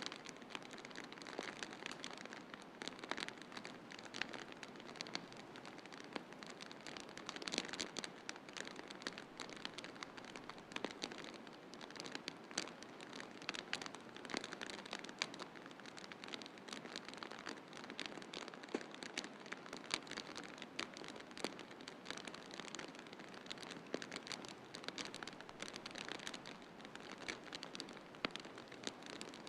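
Wood fire crackling in a fireplace, with frequent sharp snaps and pops over a steady hiss of snowstorm wind.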